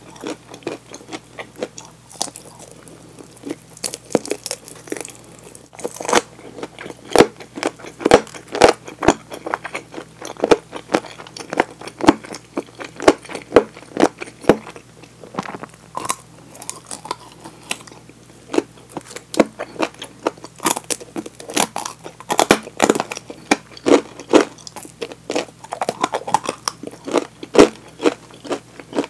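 Close-miked biting and chewing of crispy fried chicken drumsticks: many sharp, irregular crunches of the fried coating with wet chewing between them.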